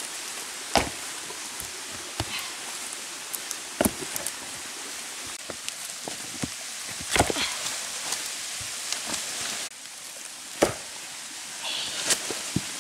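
Stones knocking and thudding as they are lifted and set down on rocky ground, with dry leaves rustling underfoot, over a steady hiss. The knocks come singly, a few seconds apart.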